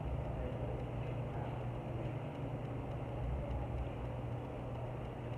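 Steady low hum over a constant rumbling background noise, unchanging throughout.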